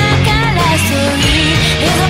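Background music: a rock song with a sung melody over a full band and a steady drum beat.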